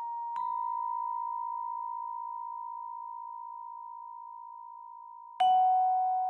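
Algorithmic tintinnabuli-style music from a Max/MSP patch: sparse bell-like tones, each struck sharply and left to ring and fade slowly. One tone sounds about half a second in and rings on; a second, lower and louder tone is struck near the end and overlaps it.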